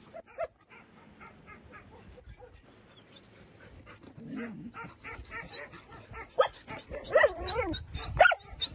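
Dogs barking and yelping: short pitched calls that bend up and down, faint at first and louder from past the middle.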